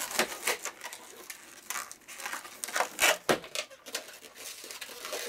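Inflated latex 260 modelling balloon being twisted and tied by hand, rubbing against itself and the fingers in a run of irregular scratchy rubs.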